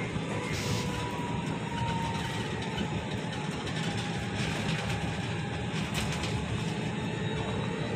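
Cabin noise inside a Volvo BZL battery-electric bus under way: a steady rumble of road and body noise, with the electric drive's faint whine sliding slowly up and down in pitch. There are a couple of brief rattles.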